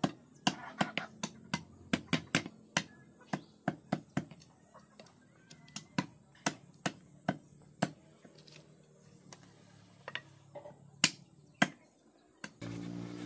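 A run of sharp taps or knocks, about two to three a second and thinning out after about eight seconds; the loudest comes near the end. Then the sound cuts abruptly to a steady motor hum.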